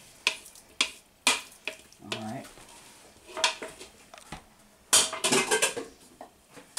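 A utensil knocking and clinking against a ceramic mixing bowl as flour mixture is worked into cake batter: sharp separate clicks about twice a second. About five seconds in comes a short clatter of dishes and utensils.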